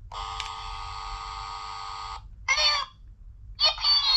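Peppa Pig Flip and Learn toy phone playing electronic sounds through its small speaker: a steady buzzy tone for about two seconds, then two short bright sound clips with sliding, falling pitch near the end.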